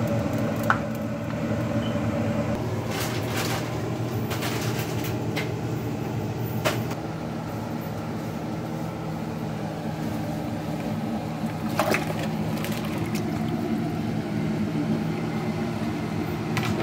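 Steady low mechanical hum, like a kitchen fan or appliance running, with a few light clinks and taps scattered through it.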